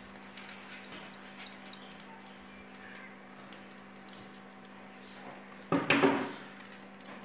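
Faint crisp snipping of moringa leaves being chopped finely against a bonti's curved blade, over a steady low hum. About six seconds in, a short loud cry from an animal breaks in.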